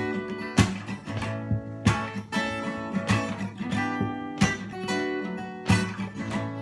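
Instrumental music: a guitar, most likely acoustic, strummed in a steady rhythm, with a strong stroke about every second and a quarter and lighter strums between.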